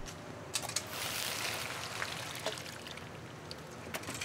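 Soy milk being poured from a metal pot into a shallow copper pan: a steady splashing pour that thins out after about two and a half seconds. A few light metal clicks come near the start and again near the end.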